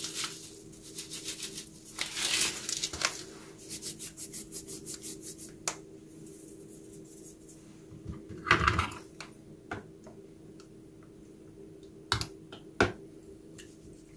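A paper spice packet rustling and being tapped as ground hot pepper is shaken out over a dish, in quick runs of small ticks. Past the middle comes a knock, then a few sharp clicks of a metal fork against a plastic container near the end.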